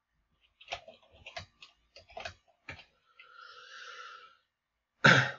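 Computer keyboard keys clicking, about seven keystrokes over the first three seconds, then a soft hissing noise for about a second. Near the end comes a short, loud burst of voice.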